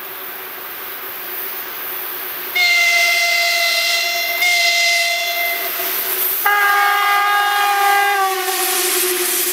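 VL11M electric locomotive sounding its horn as it comes past at the head of a freight train. Two blasts on one pitch start about two and a half seconds in, then a longer blast on a different tone whose pitch drops slightly as the locomotive passes. Under it is the growing rumble of the train on the rails.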